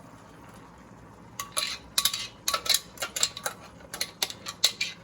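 A kitchen utensil clinking and scraping against cookware in a quick, irregular run of sharp clatters. It starts about a second and a half in, after a quiet moment.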